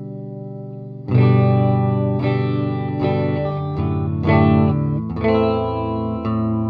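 Epiphone Les Paul 100 electric guitar played through an amplifier: a ringing chord fades, then a new chord is struck about a second in, followed by about five more chords and notes, each let ring.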